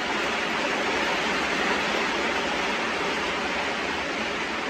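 Steady rain falling, an even continuous hiss.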